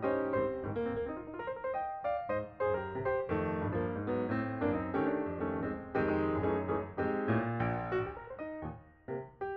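Background piano music: a steady run of single struck notes forming a flowing melody over lower notes, thinning briefly near the end before the next phrase.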